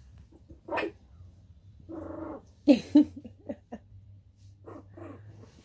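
Three-week-old Pomeranian puppy playing: a short growl about two seconds in, then two sharp little barks in quick succession, followed by a few faint small yips.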